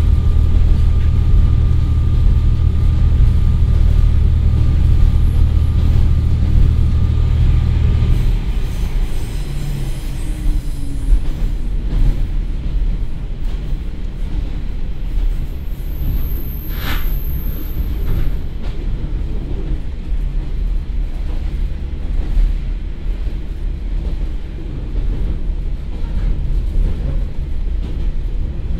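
Cabin sound of a KiHa 40 diesel railcar under way. Its Komatsu SA6D125HE-1 diesel engine drones steadily under power, then about eight seconds in the engine note drops away, leaving the rumble of wheels on rail. A brief high-pitched squeal comes about halfway through.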